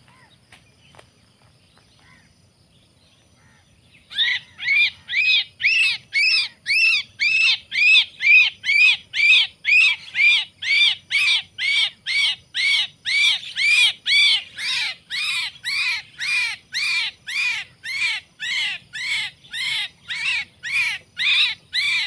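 Captured Javan myna (jalak kebo) calling in distress while held in the hand. It gives a loud, evenly spaced series of calls, about two a second, starting about four seconds in.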